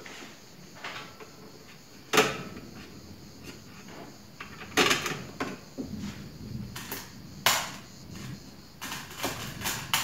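Irregular knocks and clinks of metal table-saw stand parts being handled and fitted together, a crossbar set against the leg frame. The sharpest knock comes about two seconds in, with a quick run of clinks near the end.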